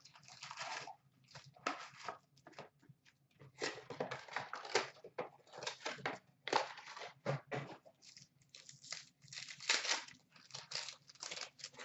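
Plastic shrink-wrap being torn off a trading card box, then card packs and wrappers crinkling and rustling in the hands, in irregular crackly bursts.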